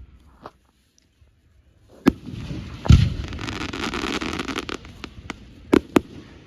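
Fireworks going off: a sharp bang about two seconds in, then a louder bang followed by about two seconds of crackling, and two more bangs in quick succession near the end.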